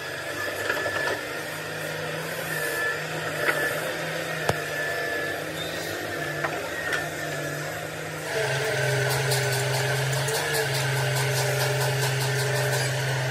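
A machine running with a steady hum and a few sharp knocks. About eight seconds in it grows louder, with a higher whine added and a quick run of ticks.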